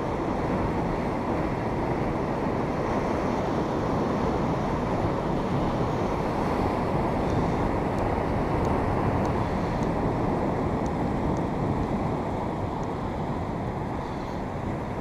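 Wind buffeting the microphone over the steady wash of surf breaking and running up a sandy beach.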